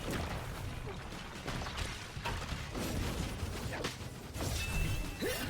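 Anime battle sound effects: scattered swishes and hits over a steady low rumble, with a brief high ringing tone near the end.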